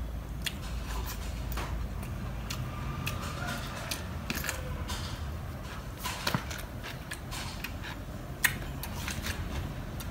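Close-up eating of grilled fish: scattered crisp clicks and crunches of biting and chewing, one sharper snap about eight seconds in, over a low steady background rumble.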